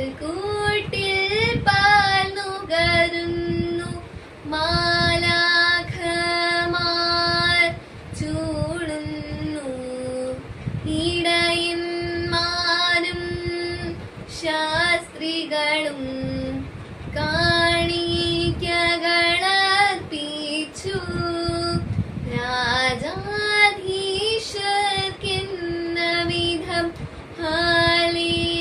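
A girl singing a Malankara Orthodox liturgical hymn solo and unaccompanied, in long held notes that step up and down in pitch, with short breaks for breath between phrases.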